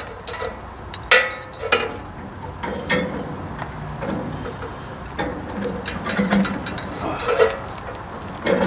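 Scattered light clicks and knocks from someone handling a tape measure and working in a cramped spot on a sawmill frame, with a few short low grunts mixed in.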